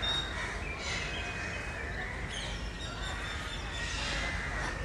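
Several birds calling and chirping, short calls and thin whistled notes scattered over a steady outdoor background hum.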